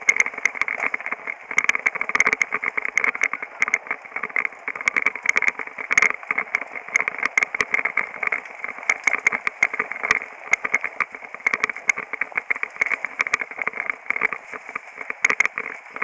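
Continuous rattling clatter from a mountain bike and its on-board camera jolting over a rough dirt trail, with many sharp clicks and a choppy, fluttering buzz.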